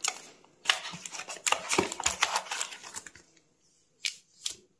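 Plastic sleeve and cardboard packaging crinkling and rustling under the hands as a phone manual is pulled out of its box, with sharp little clicks. About three seconds in it stops, then two brief taps come near the end.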